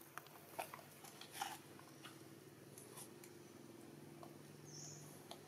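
Near silence: a faint steady hum with a few soft clicks and rustles, and one brief high squeak a little before the end.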